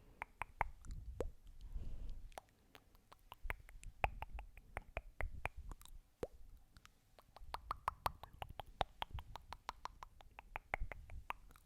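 Close-miked ASMR trigger sounds: rapid, irregular soft clicks and pops in clusters, with two short quieter gaps.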